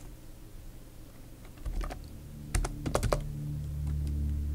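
Computer keyboard keys clicking as a short entry is typed, a handful of keystrokes starting about one and a half seconds in. A low steady hum runs under them from about two seconds in.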